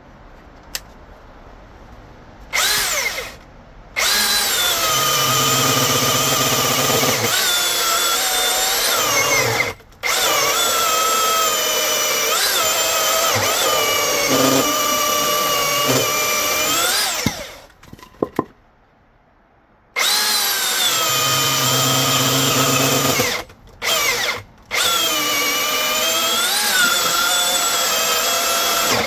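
Milwaukee M18 Fuel dual-battery brushless chainsaw (2827-22) cutting hardwood at full power with its stock .325 semi-chisel chain. After a short burst, the motor whine runs loud and sags in pitch as the chain loads up in the wood. It cuts out briefly a few times, and for about two seconds midway.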